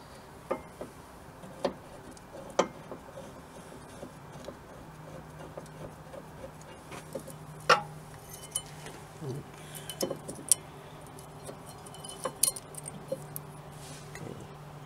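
Scattered light metal clicks and clinks of the M10 bolts, caliper bracket and hand tools being handled while the rear brake caliper bracket is fitted, two sharper clinks about 8 and 10½ seconds in.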